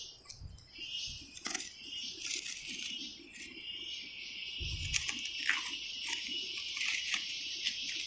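Steady high-pitched chorus of insects such as crickets, fuller from about halfway, with scattered sharp clicks and a few dull thumps over it.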